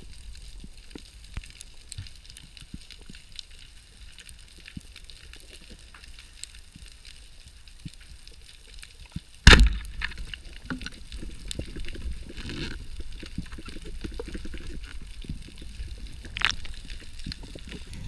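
Speargun fired underwater: one sharp, loud crack about halfway through, followed by a low rumble of churning water. A fine crackle of tiny underwater clicks runs underneath, with another lighter click near the end.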